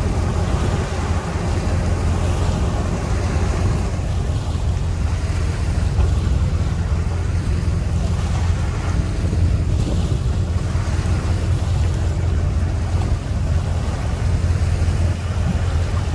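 Steady low engine rumble from a pickup truck pulling a boat trailer up a ramp, mixed with wind buffeting the microphone.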